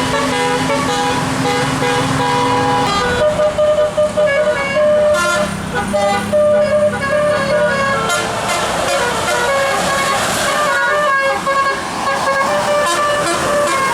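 Bus telolet horn playing a melody of short notes that step from pitch to pitch, with the bus engine running underneath.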